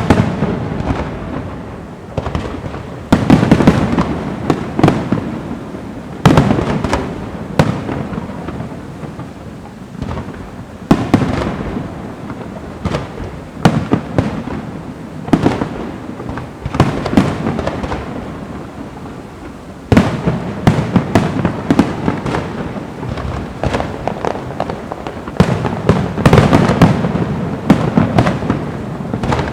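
Fireworks going off: repeated sharp bangs and crackling, coming in several louder flurries with softer popping in between.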